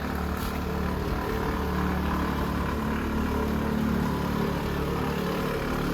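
A steady low engine hum, like an engine idling.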